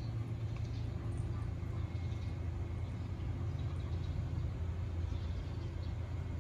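Steady low mechanical hum, constant in level, with a few faint higher tones running through it.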